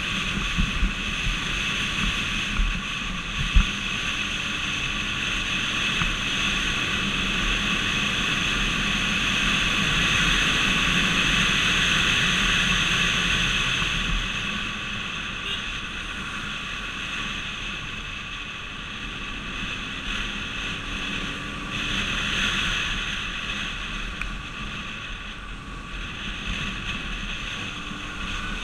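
Steady road and wind noise of a vehicle driving at speed on a highway. It swells for a few seconds near the middle and again later on, and there is a sharp knock about three and a half seconds in.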